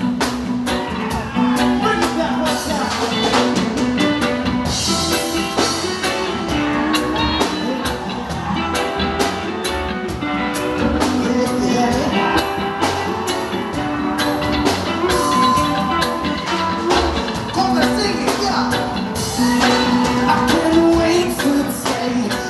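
Instrumental intro of a reggae-rock song: a full band with drums keeping a steady beat under sustained bass and melodic lines, before the vocals come in.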